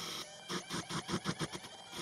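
Router-driven CNC lathe turning a cold-rolled steel bar: the steady spindle noise gives way, about half a second in, to a run of rapid chattering knocks, about seven a second, as the cutting insert takes a big chamfer that the setup struggles with.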